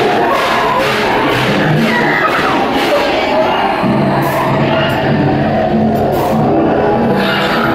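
Dramatic background music from the train ride's dinosaur-scene soundtrack, playing loudly and steadily.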